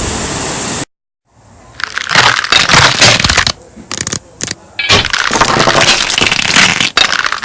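Music cuts off abruptly about a second in. After a short silence, loud irregular crackling and crunching noise starts up in bursts, broken by brief gaps.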